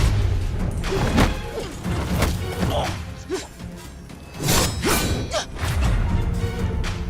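Dramatic background score over fight sound effects: whooshes of swung blows and a series of hits and thuds, with a quieter stretch in the middle.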